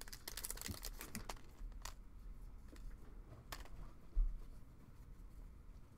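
Foil wrapper of a 2022 Topps baseball card pack crinkling and tearing as it is peeled open by hand. Then the stack of cards is handled, with a dull knock about four seconds in.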